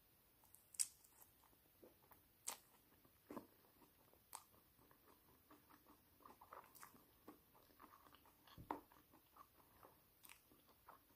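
Faint chewing of a crisp cracker, with a few sharp crunches scattered through it and softer mouth sounds in between.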